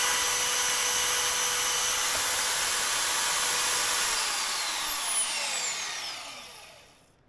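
Portable band saw with a DeWalt 14/18-tooth blade running steadily with a high motor whine, then switched off about four seconds in and winding down, its whine falling in pitch as it coasts to a stop.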